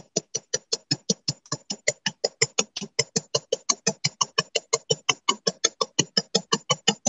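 Rapid, even taps of a small riveting hammer's square face on the end of a wire rivet over a steel bench block, about five strikes a second. The hammering spreads the end of the wire flat to form a square-set rivet head.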